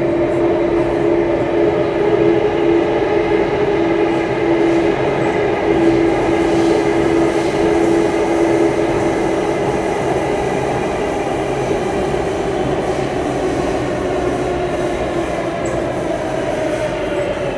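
Singapore MRT train running, heard inside the carriage: a steady rumble and rush of wheels on track. A strong humming tone is present in the first half and fades out about halfway through.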